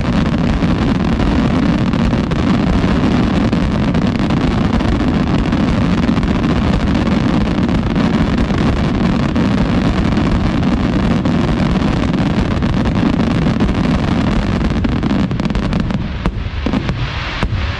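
Loud, dense barrage of fireworks, the bursts running together into a continuous rumble with crackle. About sixteen seconds in it thins out to a few separate bangs.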